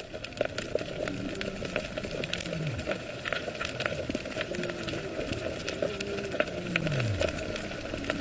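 Underwater ambience over a sandy seabed: a dense, steady crackle of clicks, with a low tone sliding downward twice, about two and a half seconds in and again near the end.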